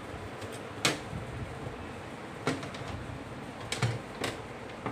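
Scattered sharp clicks and knocks, about half a dozen, as a desktop PC case's cover panel is handled and pushed against the case while being fitted shut.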